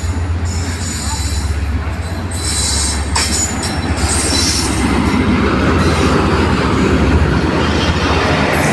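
Passenger train running past on the rails: a steady low rumble with high-pitched wheel squeal, growing a little louder about halfway through, with one sharp click about three seconds in.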